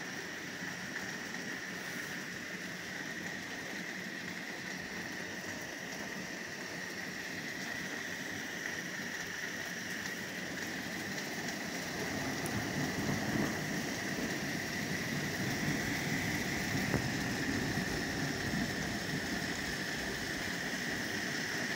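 Heavy downpour of rain, a steady rushing hiss that grows louder and fuller about twelve seconds in.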